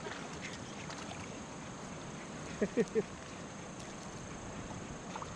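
Steady rush of shallow river water flowing over stones. A little past halfway come three short, quick squeaks that rise and fall in pitch.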